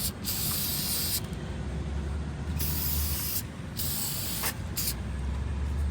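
Aerosol can of battery terminal protector spraying onto battery terminals in several short hissing bursts, about four in a row.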